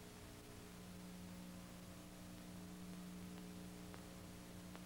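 Faint steady hum with hiss from an old film soundtrack, with a few faint clicks in the second half.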